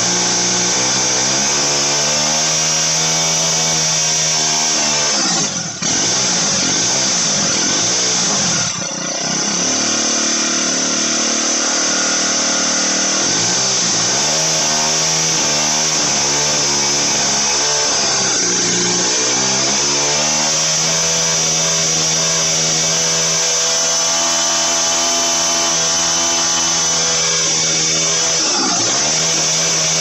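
Motorized bicycle's small two-stroke kit engine revved over and over while standing, its pitch climbing and falling with each blip of the throttle, a high-pitched buzz that sounds like a dental drill. It runs cleanly with its carburetor jetting fixed, the revs dropping sharply for a moment about six and nine seconds in.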